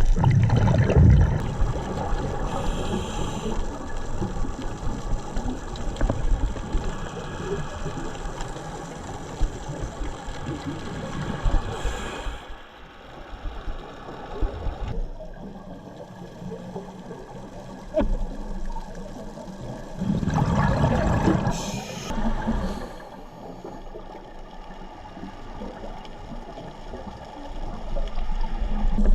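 Scuba regulator breathing heard underwater: a diver's exhaled bubbles gurgle in three loud surges, at the start, about halfway and about two-thirds in, each followed by a short hiss of the next inhale, over a steady underwater wash.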